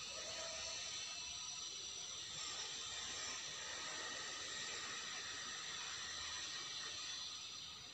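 A steady hiss, with faint high tones held through it.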